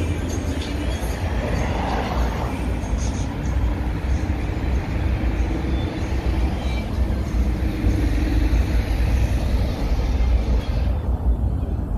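Traffic passing on a busy city street: a steady low rumble of car engines and tyres, with a steady engine hum through most of it and faint voices of passers-by.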